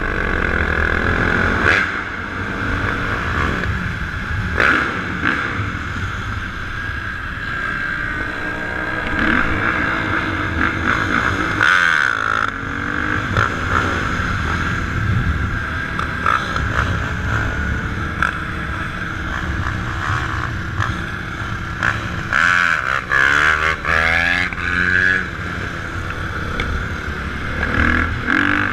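Dirt bike and four-wheeler engines revving and riding by, their pitch rising and falling again and again, loudest in two spells around the middle and near the end.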